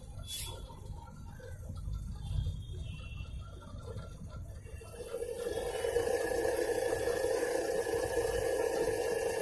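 IFB Elina washing machine running. A low rumble gives way, about five seconds in, to a steady hum with a rushing hiss.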